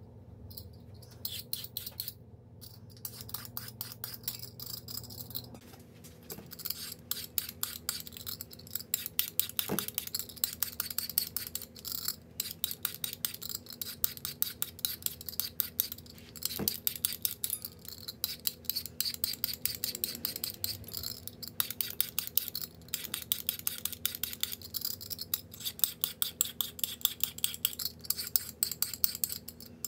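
Quick repeated strokes of a kitchen blade working carrots, about four or five sharp strokes a second in an uneven run, sped up to double speed, over a steady low hum.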